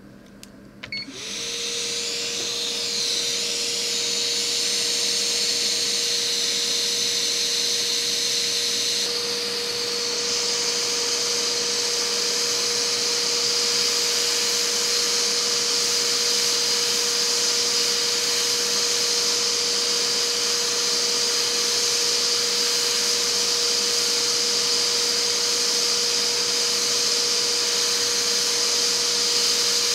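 Hakko FR-810B hot air rework handpiece blowing with its nozzle removed at airflow setting 6, heating a large chip to desolder it. It makes a steady rushing hiss with a steady hum under it, starting about a second in and building over the next couple of seconds.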